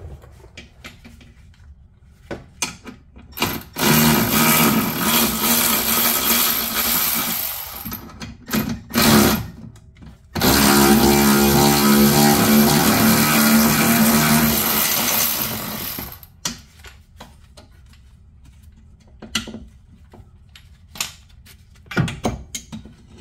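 A power tool running in two long runs of several seconds each as it spins out the two 16 mm bolts of a BMW E46 front control arm bushing bracket, with a steady whine; short clicks and knocks of tools and parts come before, between and after.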